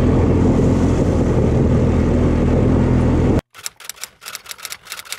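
Steady, loud engine rumble, as heard riding in a motor vehicle, cut off abruptly about three and a half seconds in. A quick, irregular run of light clicks or taps follows.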